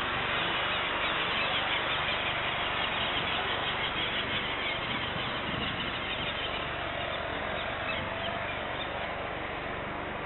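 Jet engines of a taxiing Airbus A321neo, heard from a distance: a steady rush with a high, flickering whine on top, easing slightly near the end.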